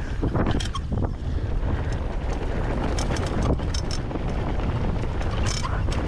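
Mountain bike descending fast: wind rushing over the microphone as a steady low rumble, with the bike rattling and clacking sharply several times over the rough trail.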